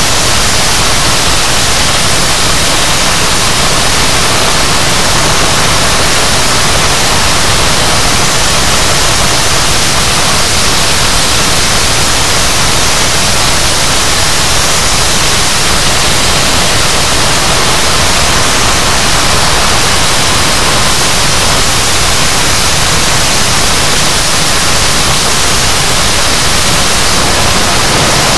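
English Electric Lightning F.6's Rolls-Royce Avon turbojet running in afterburner during a ground engine run: a very loud, steady rushing noise that does not change.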